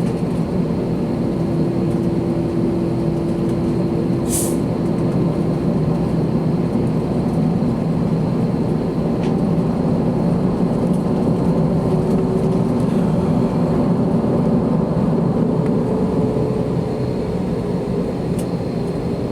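Steady jet engine and airflow noise of an Airbus A321 heard from inside the cabin, a low even rumble. A faint steady tone sounds for the first few seconds, and a short hiss comes about four seconds in.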